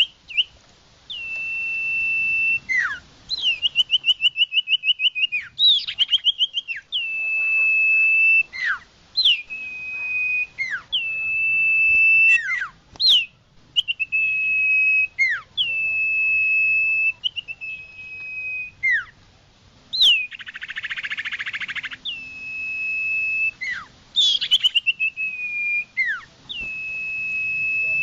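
Common iora (cipoh) calling: clear, loud, long steady whistles repeated over and over, each opening with a quick upward flick, mixed with fast trilled runs and falling slurs. A harsh buzzy rasp comes about twenty seconds in.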